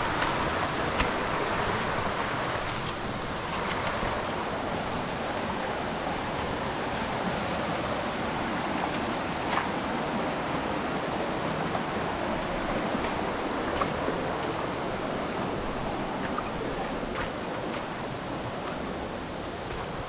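Steady rush of a shallow, rocky stream running over boulders and small rapids, with a few faint clicks.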